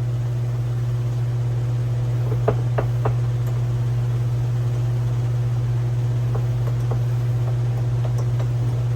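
Steady low hum, with a few light metal clicks and knocks from tools and parts being handled on the floor jack: three close together a few seconds in and a few more near the end.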